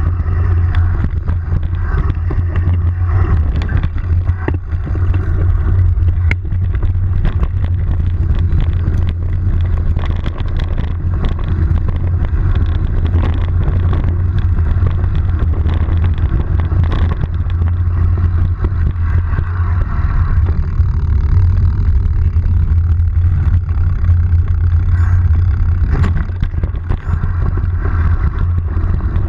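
Steady low rumble of a vehicle being ridden along a bumpy dirt trail, with frequent knocks and rattles over the bumps.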